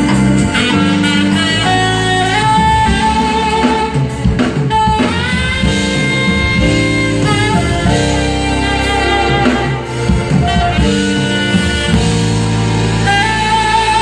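Live smooth-jazz/R&B band: a saxophone plays the melody in long held notes, bending up into a note about five seconds in, over keyboard, electric guitar, bass and drum kit.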